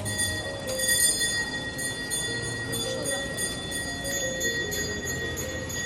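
Bells ringing with a steady ringing tone, overlaid by a jingling that repeats about three times a second.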